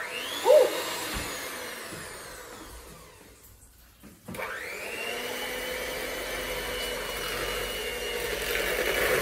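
Electric hand mixer with twin beaters switched on in a bowl of banana bread batter, its whine falling away as it slows over the first few seconds. About four seconds in it is started again, spins up and runs steadily. A brief loud sound comes about half a second in.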